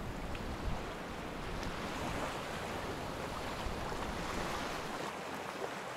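Steady wash of small waves in shallow water at a beach, with wind on the microphone.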